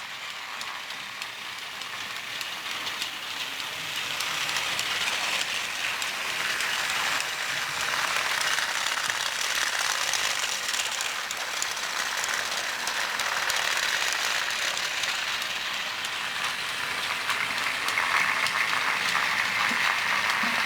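Battery-powered toy trains running on plastic track: a steady whirring of small motors and gears with a rattling hiss from the wheels. It grows slightly louder over the first few seconds and stays steady after that.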